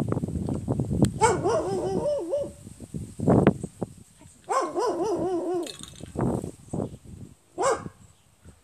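A dog whining: two long wavering whines about a second each, then a short one near the end, over rustling and handling noise.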